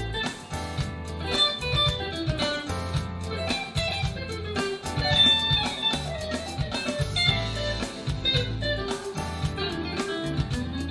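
Harley Benton Fusion III HSS electric guitar played with a clean tone, picking melodic lines and chords. Underneath are a low bass part and a regular beat of sharp percussive hits.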